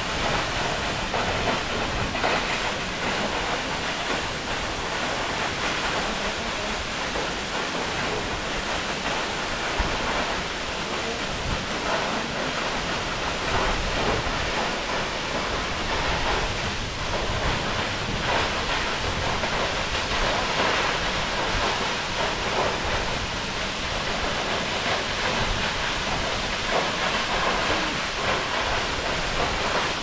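A tall waterfall pouring down a rock face into a pool below: a steady, even rush of falling water.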